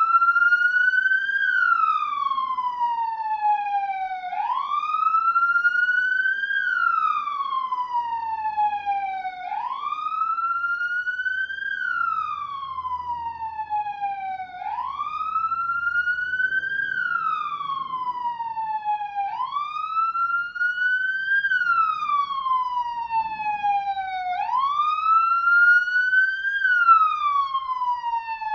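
Police car siren sounding a slow wail: the pitch climbs over about a second and a half, then sinks slowly for about three seconds before climbing again, roughly every five seconds.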